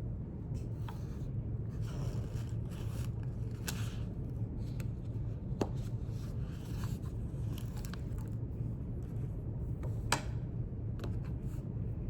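Quiet indoor room tone with a steady low hum, broken by scattered soft scrapes and paper rustles from note-taking at a desk. Two sharp clicks come about five and ten seconds in.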